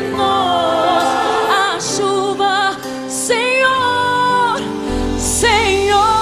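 Gospel song performed live: a woman's voice sings wordless runs and held notes with vibrato over the band's accompaniment, and a deep bass note comes in about five seconds in.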